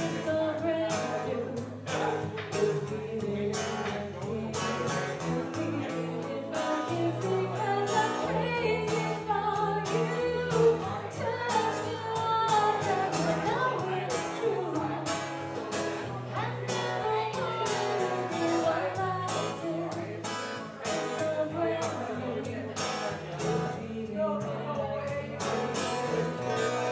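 Live acoustic duo: a woman singing a ballad over a strummed acoustic guitar.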